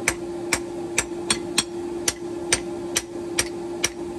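Hand hammer striking a hot wrought-iron hammer head on an anvil, about two sharp metallic blows a second, as the cheeks around the eye are forged thinner.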